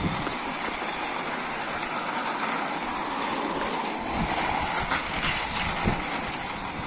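Plastic wheels of a BAYBEE round baby walker rolling over rough concrete: a steady rolling noise with a few light knocks in the second half.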